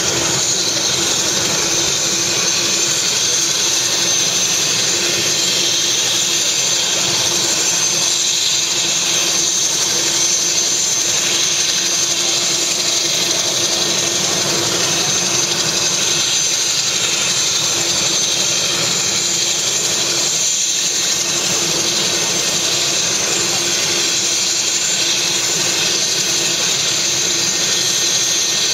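Helicopter's turbine engine running at ground idle on the pad with the rotor turning: a steady whine and loud hiss over a constant hum, unchanging in pitch and level.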